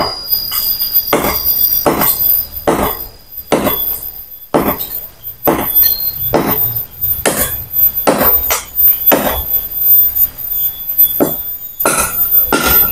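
Hand cutting of a large durian tree branch: a steady series of rasping strokes, roughly one a second.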